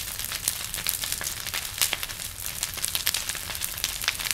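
Bonfire of a burning wooden structure crackling, with frequent irregular sharp snaps and pops over a steady low rush of the flames.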